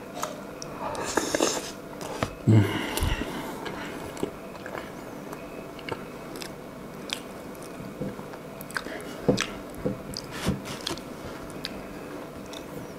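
Close-up mukbang eating sounds: a person biting and chewing mouthfuls of cheesecake with a grated-cheese topping. Short mouth clicks and smacks come scattered throughout, a few louder than the rest.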